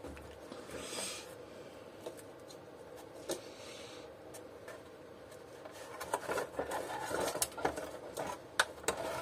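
Vacuum cleaner motor in its rubber seal being worked loose and lifted out of the plastic housing by hand: soft rubbing and scraping of plastic and rubber, with a cluster of small clicks and knocks in the last few seconds.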